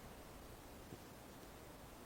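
Near silence: a faint, steady hiss, with one tiny tick about a second in.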